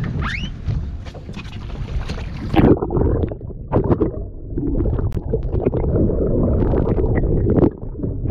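Wind and sea noise on an action camera's microphone, with a short rising whistle near the start; about two and a half seconds in the camera plunges underwater and the sound turns muffled, into a low rumble and gurgling of water against the housing with scattered clicks.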